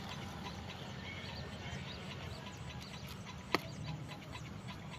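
Outdoor background: a steady low rumble with scattered faint bird chirps, and a single sharp click about three and a half seconds in.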